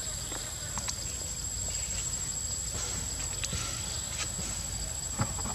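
Insects trilling steadily in a high, thin, unbroken tone, with a few light clicks or knocks, the sharpest near the end.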